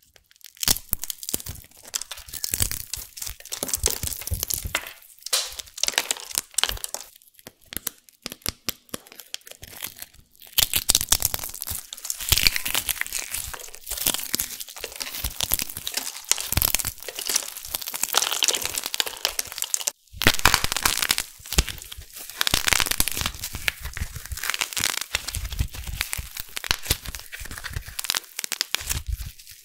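Hands crushing and crumbling dry, crunchy soap pieces: a dense run of crisp crackling and crunching, with short breaks about 10 and 20 seconds in.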